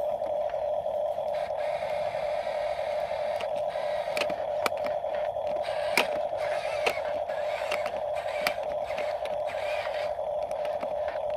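Small geared electric motor of a radio-controlled toy construction vehicle running with a steady whir, with sharp clicks and knocks of plastic parts here and there, the loudest about six seconds in.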